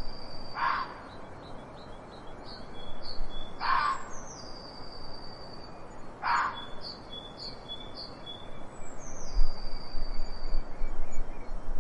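Outdoor nature recording of birds singing: repeated high whistled notes, several sliding down in pitch. About three seconds apart, three short, louder calls sweep downward through them, over a steady background hiss.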